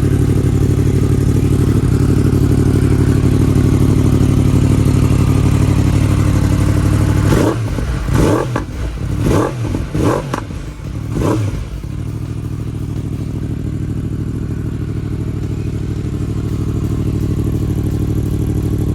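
2020 Yamaha R1M's crossplane inline-four running steadily through an Akrapovic Evolution titanium full exhaust. About seven seconds in it gives about five quick throttle blips, each rev rising and dropping, then settles back to steady running that slowly grows louder.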